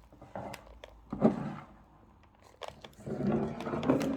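Candle jars and their packaging being handled and set down: a few sharp knocks and clicks with patches of rustling.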